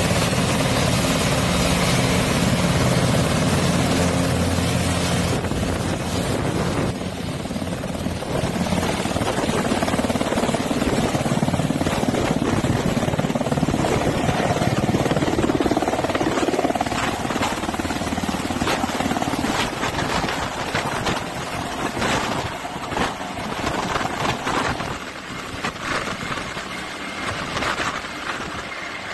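Helicopter turbine and rotor noise: a steady engine hum with low tones at first, then, after a change about five seconds in, a helicopter flying overhead with a regular rotor beat that fades as it moves away.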